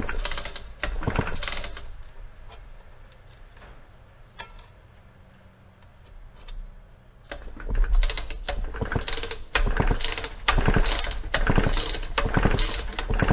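Recoil starter of a Homelite Super XL Automatic chainsaw being pulled repeatedly: a few pulls, a short lull, then a run of quick pulls about a second apart. The engine spins over with its spark plug out and does not fire, because it has no spark.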